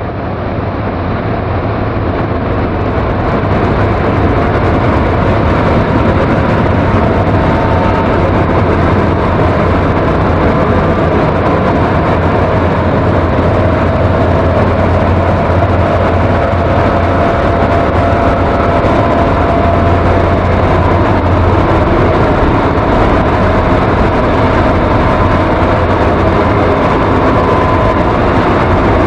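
Dark ambient noise music: a dense, rumbling drone with a strong low hum and faint held tones above it, swelling in over the first few seconds and then holding steady and loud.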